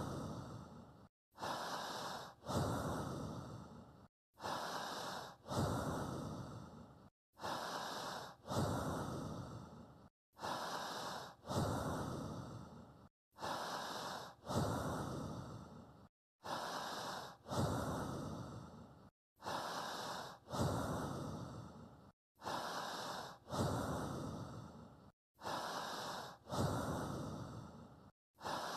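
A person's slow, paced breathing, repeating evenly about every three seconds: a shorter breath, then a longer one that fades away, with a brief dead silence between cycles. This is the guide breath for breathing in sync during hypnotic trance induction.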